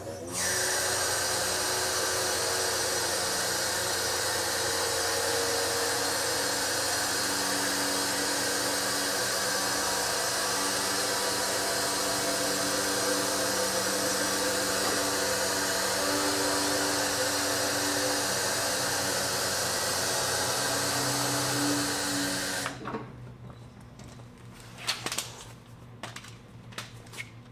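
Steady motor-driven whir with a strong hiss that runs for about 22 seconds and then cuts off suddenly, leaving a few light clicks.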